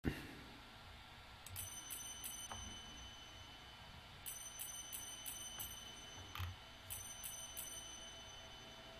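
Faint, high tinkling chime-like notes in three short runs of quick strikes, about three a second, over a faint steady hum.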